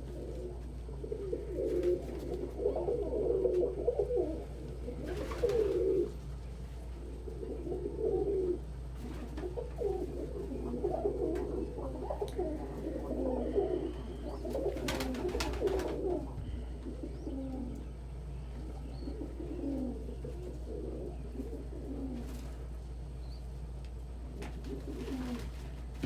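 Domestic pigeons cooing, calls following one another and overlapping, louder through the first half and fainter toward the end.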